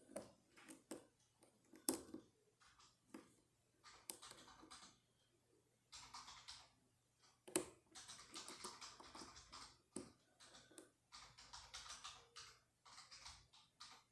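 Lock pick and tension tool working the pins of a 7-pin S.PRO Scandinavian oval lock cylinder: faint, irregular metallic clicks and short scratchy scrapes in the keyway, with the sharpest clicks about two seconds in and again halfway through.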